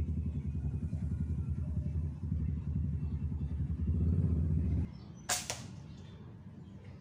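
A low, pulsing engine rumble, the loudest sound, that cuts off sharply almost five seconds in; about half a second later comes one short, sharp shot from a Tarantula PCP air rifle.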